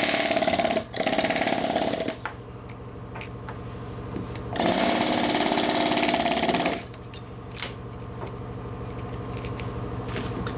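Pneumatic air hammer chiselling out hardened fibrous material. It comes in short bursts of rapid hammering: two in the first two seconds, then a longer one from about four and a half to seven seconds.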